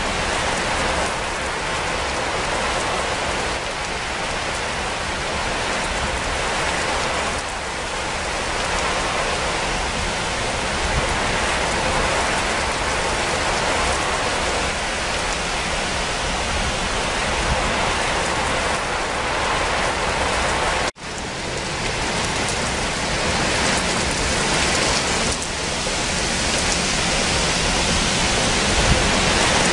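Rain falling steadily, an even hiss of many drops hitting a surface. It breaks off for an instant about two-thirds of the way through and picks up again at once.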